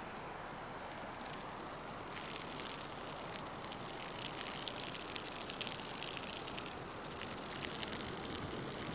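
A stream of urine falling from a deck onto grass, a crackly splashing patter that sets in about two seconds in and grows denser, over a steady hiss.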